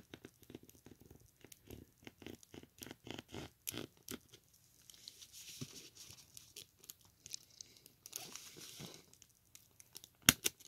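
Fingers pressing and shifting on an opened HP 10s calculator's circuit board and plastic case: a run of small irregular clicks and crackles with some soft rubbing, and a sharper double click a little before the end. The presses bear down on the display's connector strip to close a loose connection.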